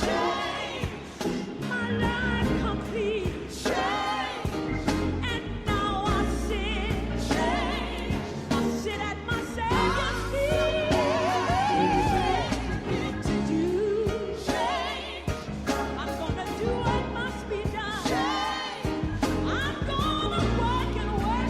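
Gospel song: voices singing with wavering vibrato over bass and a regular drum beat.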